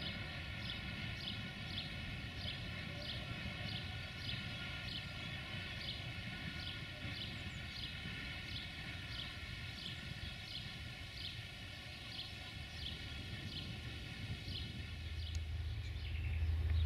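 Countryside ambience: a high, short chirp repeating steadily about one and a half times a second over a low background rumble, which grows louder near the end.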